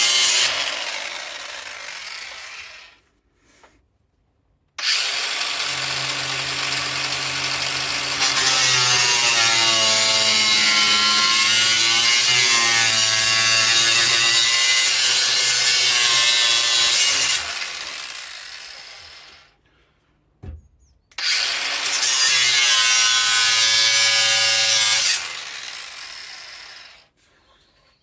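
Angle grinder cutting and grinding the car's sheet-steel bodywork in three runs. Its whine wavers in pitch as it bites, and each run fades away as the disc winds down.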